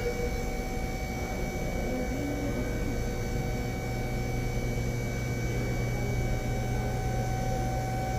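Steady background hum and hiss with several constant tones, unchanging throughout.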